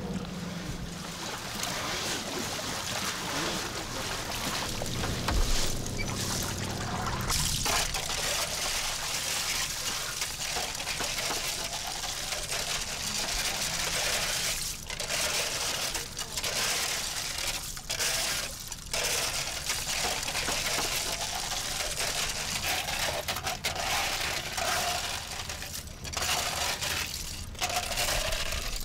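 Water sloshing, with a low hum, for the first several seconds. Then, from about seven seconds in, a dense rattling clatter of small shells being scooped and poured with plastic bowls from a heap. The clatter keeps dropping out briefly and starting again.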